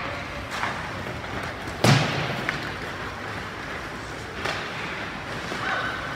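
A few separate thuds and knocks that echo as in a large hall, over a steady background din; the loudest, deepest thud comes about two seconds in. A short high squeak follows near the end.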